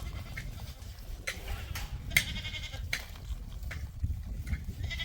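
A goat bleating once, a high wavering call about two seconds in, over a steady low rumble and a few faint clicks.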